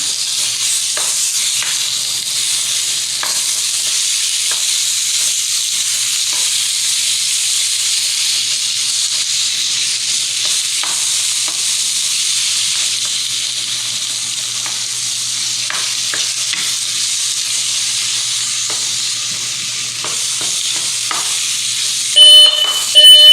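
Food sizzling steadily in a frying pan on the stove, with scattered light clicks. About a second before the end a dorm smoke alarm starts beeping very loudly in a high, pulsing tone, set off by cooking steam rather than burning food.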